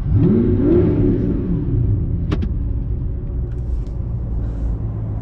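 Audi R8's V8 engine heard from inside the cabin: the revs rise and fall once in the first second and a half, then it settles into a steady low drone. A single sharp click sounds a little over two seconds in.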